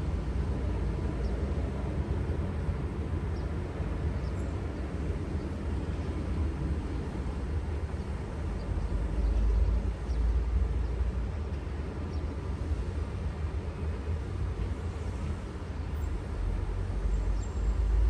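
Steady low rumbling outdoor noise, heaviest in the bass, swelling a little louder about halfway through and again near the end.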